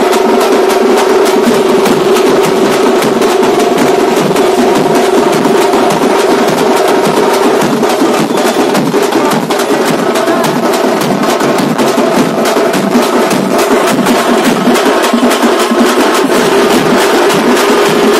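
Street drum band of tamate frame drums, side drums and large bass drums beaten with sticks in a fast, dense, unbroken rhythm, very loud.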